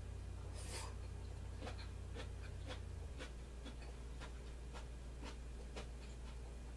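Quiet eating sounds of a person chewing food taken with chopsticks from a soup bowl: soft, irregular clicks about one or two a second, over a steady low hum.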